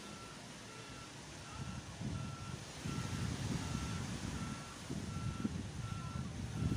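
Reversing alarm of a beach-cleaning vehicle beeping steadily, a single high tone repeating a little less than once a second, over a low rumble that grows louder about two seconds in.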